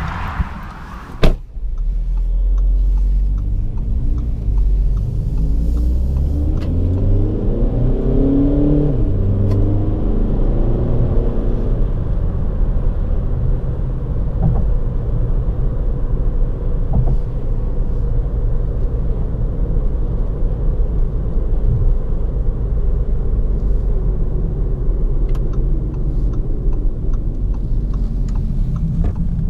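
A car door slams shut about a second in. Then the Audi Q2's 2.0 TDI four-cylinder turbodiesel runs as the car pulls away, its revs climbing a few seconds later, and settles into a steady drone with road and tyre noise inside the cabin.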